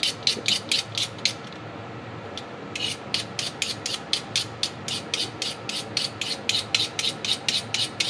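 Rapid back-and-forth scraping of a gas furnace's metal flame sensor rod by hand, about six quick strokes a second, cleaning the buildup off the sensor. The strokes stop for about a second and a half near the start, then resume.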